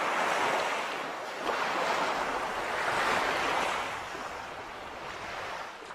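Sea waves washing onto a shore, a steady surf noise that swells twice and eases off toward the end.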